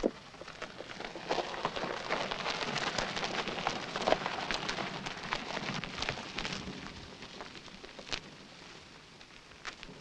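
Car tyres crunching and crackling over a gravel road as the car is pushed along with its engine off. The crunching builds over the first second or two and fades over the last few seconds.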